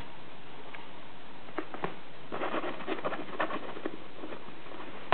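Crinkly nylon cat tunnel rustling and crackling as a kitten moves about inside it. A few separate crackles come first, then a dense run of crinkling from about two to four seconds in, and a sharper crackle comes at the very end.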